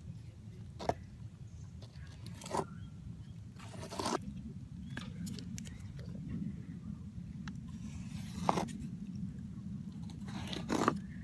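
Scattered scrapes, crunches and light knocks of hand work with roofing mastic and tools on rolled roofing, over a low steady rumble.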